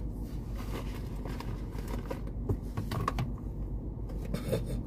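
Rustling and light clicks of small cosmetic products and their packaging being handled and taken out of a makeup bag, over a steady low hum.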